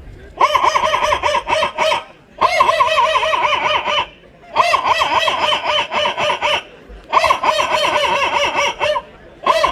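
A boy mimicking a chicken with his voice: four warbling chicken-like calls of about one and a half to two seconds each, with short pauses between them, then a brief fifth call near the end.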